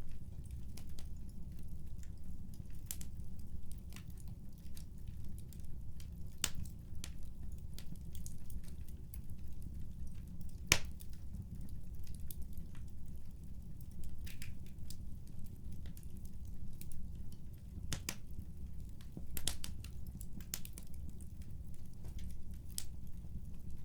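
Wood fire crackling, with irregular sharp pops over a steady low rumble; the loudest pop comes about 11 seconds in.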